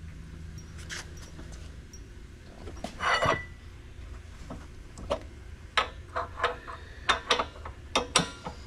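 Hand wrenches working on a motorcycle's rear axle nut: a short scraping burst about three seconds in, then a run of sharp metallic clicks and knocks as the tools shift on the nut, over a steady low hum.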